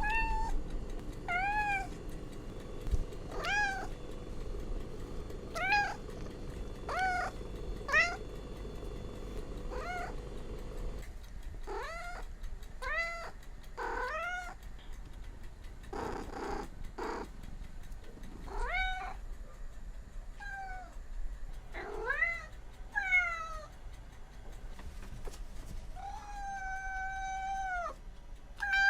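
An animal calling over and over, in short high cries that rise and fall, one every second or two. Near the end comes one longer, held cry.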